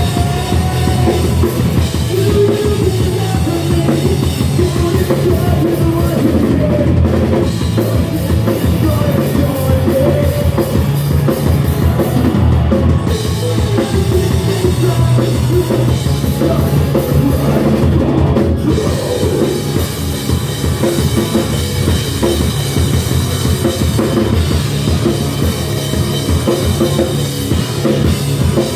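Live rock band playing loud, with a full drum kit and bass drum driving the beat.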